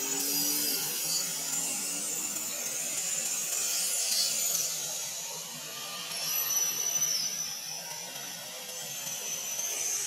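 Steady high-pitched buzzing of cicadas, with a thin whining tone coming in about six seconds in and again near the end.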